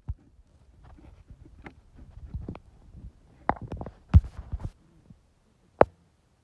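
Close handling noise with rustling in dry leaves: scattered knocks and rubs, a heavy low thump about four seconds in, and a sharp click near the end, as a hand works around a plastic drainpipe.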